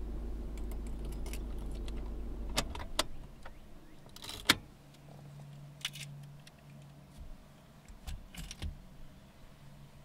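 Car engine idling with a steady low rumble, switched off about two and a half seconds in. Then keys jangle, with several sharp clicks and rattles.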